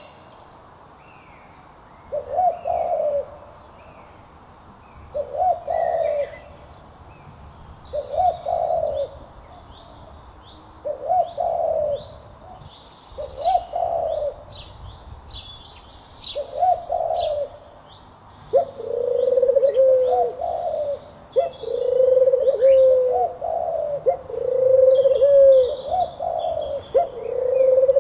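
Birds calling: a low call repeats about every three seconds, then comes faster and overlapping from about two-thirds of the way through. Fainter, short high-pitched calls from smaller birds sound in between.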